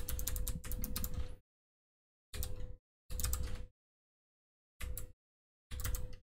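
Computer keyboard typing in five short bursts of rapid keystrokes, the longest for about the first second and a half, with dead silence between the bursts.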